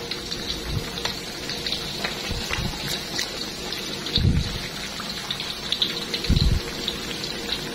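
Battered potato strips deep-frying in hot oil in a metal wok: a steady sizzle full of fine crackling, stirred with a metal ladle. Two dull low thumps come about four and six seconds in.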